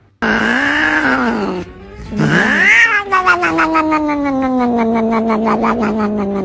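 Cat yowling: a short yowl, then a long drawn-out one that rises and then slowly sinks in pitch, wavering, for several seconds.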